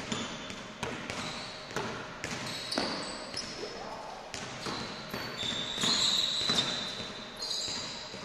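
Basketball dribbled on a wooden gym court, a series of thuds ringing in a large hall, mixed with short, high sneaker squeaks that are loudest about six seconds in.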